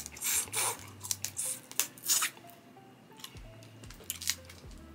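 Close-up wet chewing and lip smacking of snow crab meat: a string of short, sticky, squishy mouth sounds.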